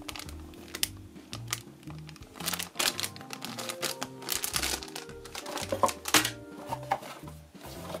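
Background music with a bass line stepping through notes, over the crackle of a thin plastic bag being handled, in clusters of sharp crinkles that are loudest about a third of the way in and again near three quarters.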